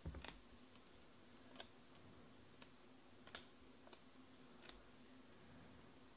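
Faint, sharp clicks of glossy Panini Prizm baseball cards being flipped and slid off a handheld stack, about six of them spaced irregularly. A faint steady low hum sits underneath.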